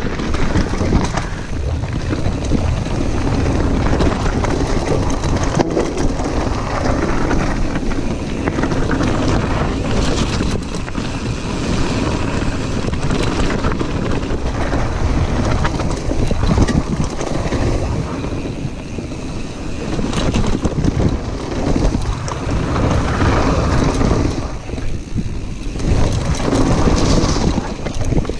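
Wind buffeting a GoPro's microphone as a mountain bike descends a gravel singletrack at speed, with tyre noise and the bike rattling over the rough surface.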